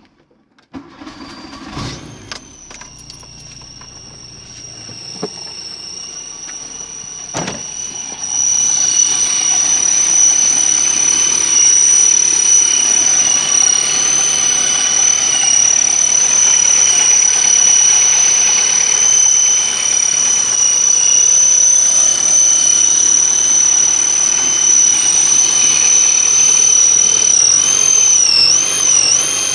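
1988 Volkswagen Jetta engine starting about two seconds in, then running with a steady high-pitched whistle from under the hood whose cause the owner cannot find. The whistle gets louder about eight seconds in and wavers up and down in pitch near the end.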